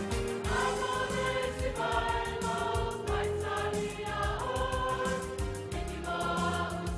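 Mixed choir of men and women singing a Christmas medley in harmony.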